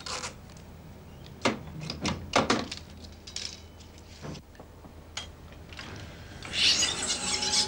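A film splicer on a flatbed editing table worked by hand: a string of sharp clicks and knocks as the cut ends of film are joined. Near the end the editing table starts running the film, with a loud rushing, chattering noise.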